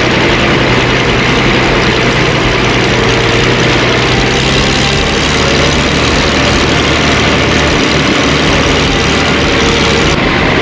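Old front-loader tractor's engine running steadily while driving, heard from the driver's seat. Its low note shifts about halfway through.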